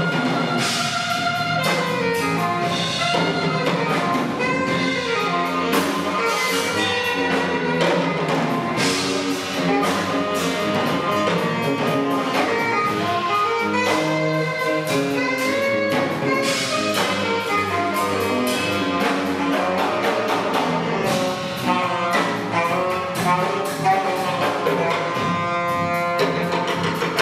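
Live band music with a saxophone playing the melody over the other instruments.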